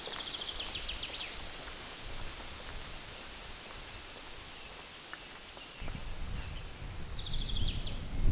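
Summer countryside ambience: a steady hiss, with a rapid high trill of evenly spaced clicks at the start and again near the end. Wind rumbles on the microphone from about six seconds in.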